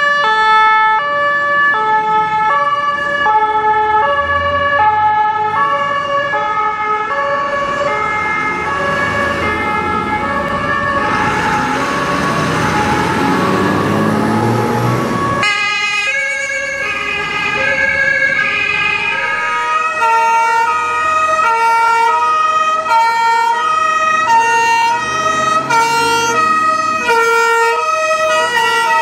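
German fire-truck two-tone sirens sounding, the high and low notes alternating steadily. About halfway through, the loud engine and road noise of a turntable ladder truck passing close swells under the siren and then cuts off. The siren pitch changes twice as different vehicles take over.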